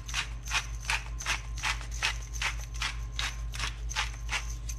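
Hand-twisted pepper grinder crunching peppercorns, a steady run of short grinding rasps at about three a second.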